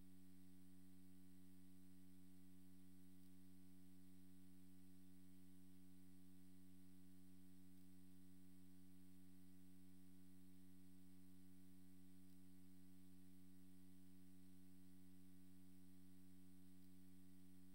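Near silence with a faint, steady electrical hum, unchanging throughout.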